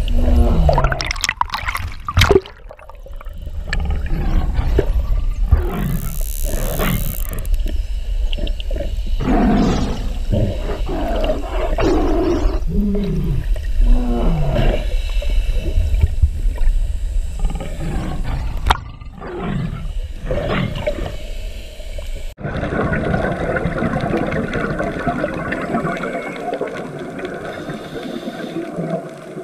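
Repeated low animal roars with a steady rumble underneath. About three quarters of the way through, an abrupt cut to a steady hiss of underwater bubbling.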